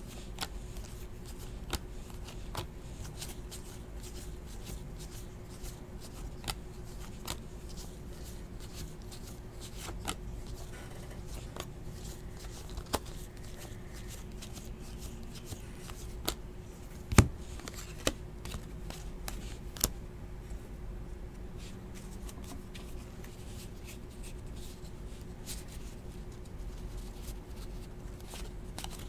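Panini Hoops basketball trading cards being flipped one by one through a stack in the hands. The card edges make soft, irregular ticks and snaps, with one sharper snap about halfway through, over a steady low hum.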